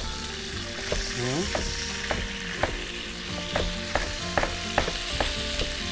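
Chicken pieces sizzling as they fry in a pan while being stirred, with irregular sharp knocks of a utensil and a knife chopping spring onions on a board.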